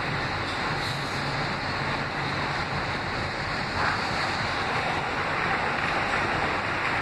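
Kawasaki R160B subway car running at speed, heard from inside the car: a steady rushing rumble of wheels on rail and air past the car, with a faint low hum underneath.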